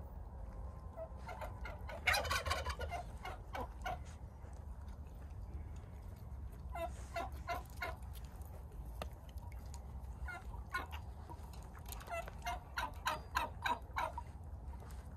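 Domestic turkey tom gobbling: three bouts of rapid, gurgling calls, the last one longest.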